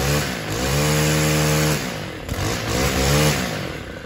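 Stihl FS 91 R brushcutter's 28cc 4-MIX engine revved: held at full throttle for over a second, dropped, revved up again, then let back down to idle near the end.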